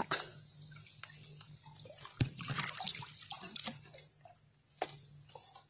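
Water splashing and dripping around a bamboo lift net being worked in muddy water: small irregular splashes and drips, the sharpest about two seconds in.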